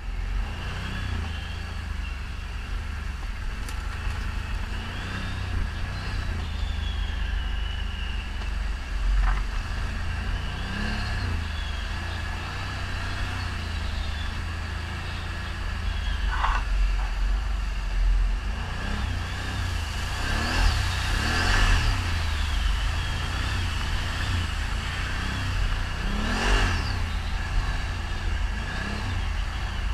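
ATV engine running under way, its pitch rising and falling as the throttle opens and closes, over a heavy low rumble. The revving grows busier in the second half.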